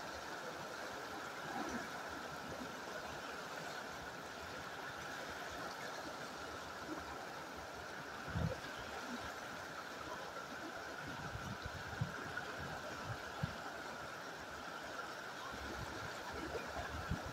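Fast river rapids rushing steadily, with a few soft low thumps, the clearest about halfway through.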